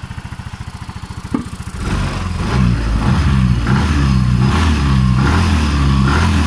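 Yamaha Mio M3 scooter's single-cylinder engine idling with an even pulse, a short click about a second and a half in, then revved up from about two seconds in, the revs rising and falling with the throttle. It is running just after a top-end rebuild for a ticking noise (new block, camshaft and valve adjustment), and the result is judged good.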